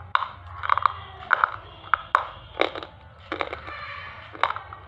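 Black slate triangle pieces being crunched and chewed between the teeth: a run of sharp, irregular cracks and crunches, about two a second.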